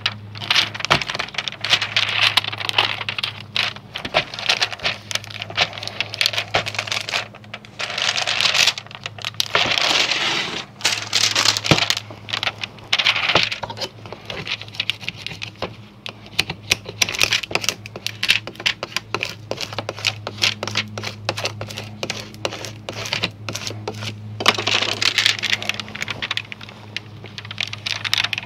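Clear plastic transfer sheet crinkling and crackling in irregular bursts as gloved hands peel it and smooth it onto a plastic disc golf disc, over a steady low hum.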